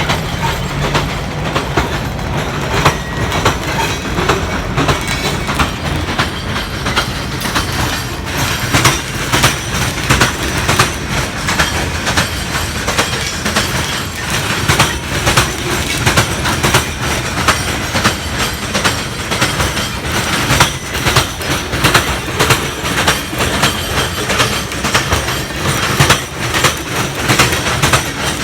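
A train rolling past, its wheels clacking steadily and rapidly over the rail joints above a low rumble.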